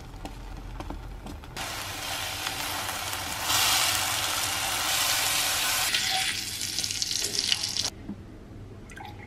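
Food sizzling in hot oil in a frying pan. The sizzle starts suddenly a second and a half in, is loudest in the middle, then fades and cuts off near the end.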